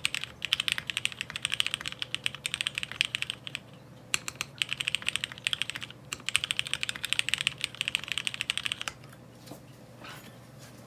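Fast typing on a 60% mechanical keyboard with a ceramic housing: a dense run of key clicks, with a short pause a little before halfway, stopping about nine seconds in.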